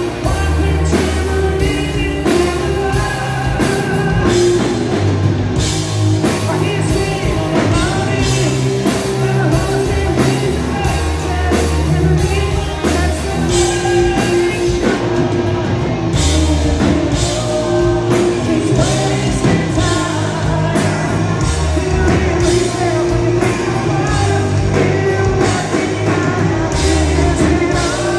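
Live rock band playing loud and without a break: electric guitars, bass and a drum kit under a male lead singer.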